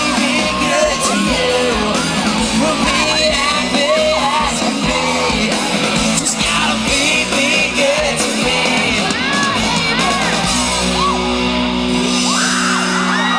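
Live pop-rock band playing amplified music, with many fans screaming over it in short high-pitched shrieks.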